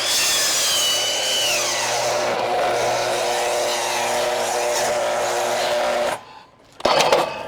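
Ryobi 12-inch sliding compound miter saw running and cutting into a thick log, its motor whine dropping a little in pitch as the blade loads up. The sound cuts off suddenly about six seconds in, which the operator takes for the saw having probably tripped the power; a short clatter follows near the end.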